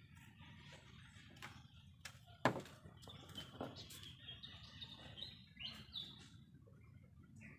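Small birds chirping in the background, with one sharp tap or click about two and a half seconds in and faint handling sounds as paper is folded.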